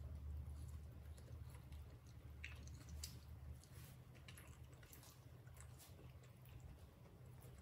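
Faint, scattered little clicks and smacks of a baby monkey chewing and pulling apart soft bread, over a low steady hum.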